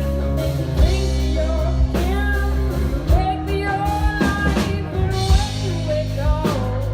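A band playing a rock-style song, with drum kit, bass and guitar under a sung melody line.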